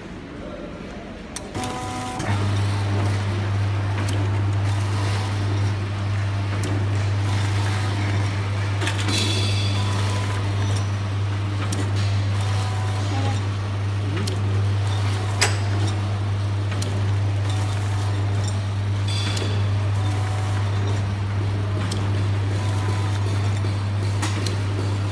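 Automatic coffee-powder sachet filling and packing machine starting up about two seconds in, then running with a steady low hum and repeated clicks and knocks from its mechanism.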